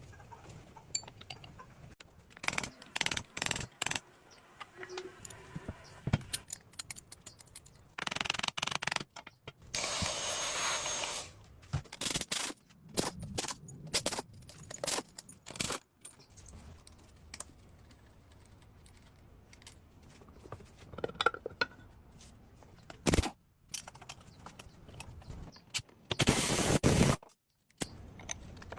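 Workshop sounds of hand tools on metal motorbike parts: scattered clinks, knocks and scrapes, with a few short hissing bursts lasting about a second each, several of them cut off abruptly.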